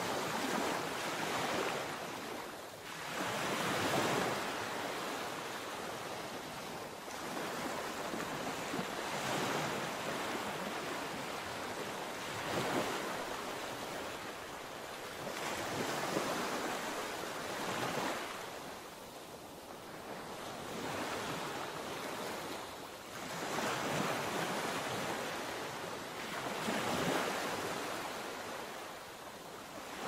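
Sea surf: waves breaking and washing ashore, a steady rush that swells and ebbs every few seconds.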